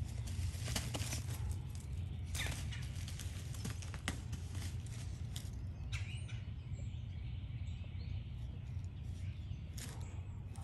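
Loose pine needles and plastic bale wrapping crackling and rustling as a basenji puppy digs and noses into pine straw: irregular crackles, thickest in the first half. A steady low hum runs underneath.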